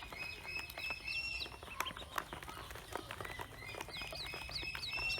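Pekin ducklings peeping: many high, short calls overlapping one another, with scattered sharp clicks among them.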